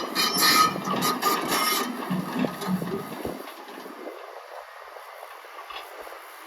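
Komatsu PC160LC-7 excavator running, with rattling clicks and a steady whine for the first couple of seconds. The engine sound then dies away and cuts out about three seconds in as the machine is shut down, leaving a faint hiss.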